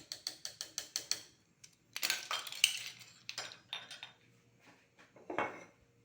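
A metal spoon clinking against cookware: a quick run of light taps, then a burst of clattering about two seconds in, a few more clicks, and one last clink near the end.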